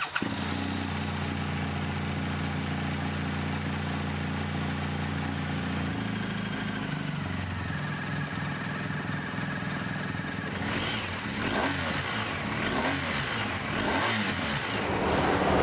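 Motorcycle engine idling steadily, then from about ten seconds in the throttle blipped several times, the revs rising and falling in quick sweeps.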